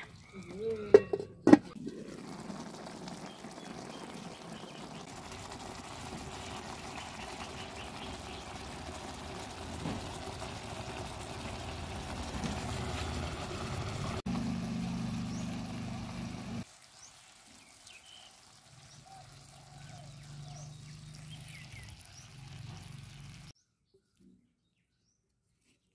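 Pork and eggplant curry simmering in oil in a metal pot, a steady sizzle that grows a little louder before it cuts off about two-thirds of the way through, then fainter and quieter: it is cooking down until the oil separates. It opens with a few sharp knocks, like a ladle on the pot.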